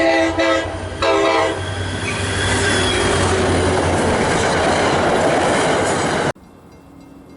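Diesel locomotive air horn sounding, breaking off briefly and sounding again until about a second and a half in, then the noise of the train running past. The sound cuts off abruptly near the end, leaving a much quieter background.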